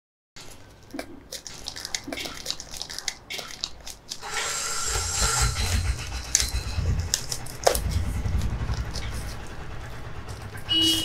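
Drone kit packaging and accessories being handled and rummaged through: rustling with scattered clicks and knocks, busier and louder from about four seconds in.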